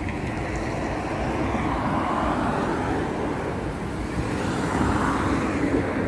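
Road traffic passing close by: a steady rush of vehicle noise that swells about two seconds in and again near the end.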